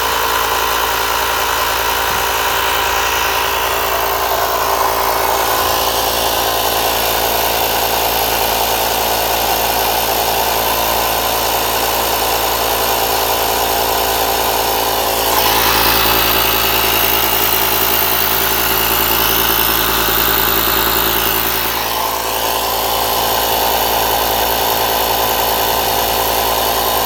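Electric air compressor running steadily, a motor hum with a hiss of air, as it inflates a freshly plugged tire. About halfway through it gets louder and hissier for several seconds.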